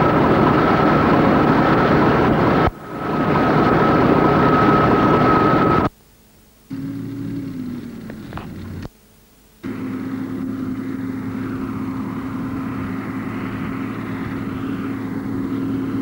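Loud rushing truck and road noise with a steady high whine, cut off abruptly twice. It is followed by a quieter, steady low drone of a diesel truck engine running at an even pace.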